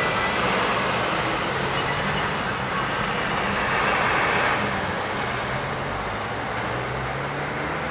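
Car driving along a city street, heard from inside: steady engine hum and road rush. The rush eases off about halfway through.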